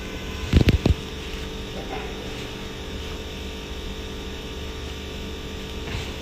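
A steady low hum, with three or four short dull thumps close together a little under a second in.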